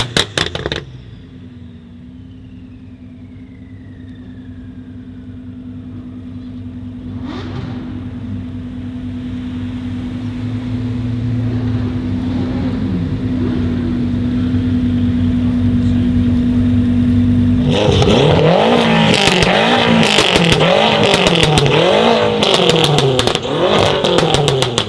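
BMW M5 F10's twin-turbo V8, fitted with catless downpipes and an M Performance exhaust, idling steadily and growing louder. About three-quarters of the way in it is revved hard several times in quick succession, with loud crackles and pops from the exhaust near the end.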